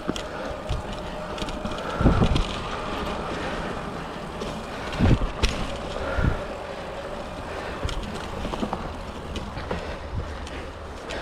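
Cannondale Rush mountain bike ridden along a dirt trail: tyres rolling, with rattles and clicks from the bike and wind rushing on the microphone. A few low thumps come about two, five and six seconds in.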